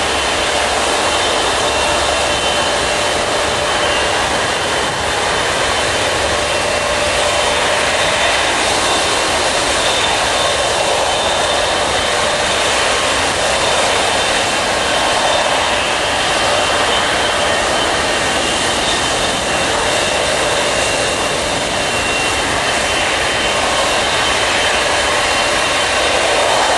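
Jetliner engines running at idle with a steady high whine, over a steady rushing hiss of de-icing fluid being sprayed from a de-icing truck's boom.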